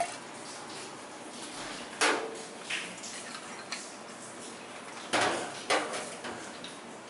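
Bar tools being handled: a few sharp clinks and knocks of a steel jigger, shaker tins and a glass liqueur bottle on the bar counter, the loudest about two seconds in and another pair about five seconds in.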